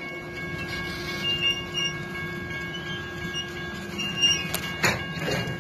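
LSRC diesel locomotive running beside the grade crossing: a steady low rumble with a few steady high tones over it. Two sharp knocks come near the end.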